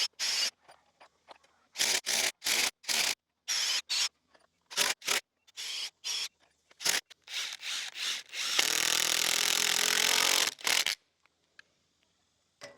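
Cordless drill working into hard white oak for bracket lag screws, run in about a dozen short trigger bursts and then one steady run of about two seconds near the end.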